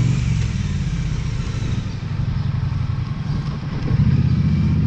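Motor vehicle engine running with a low, pulsing note. It eases off slightly about two seconds in and picks up again about four seconds in.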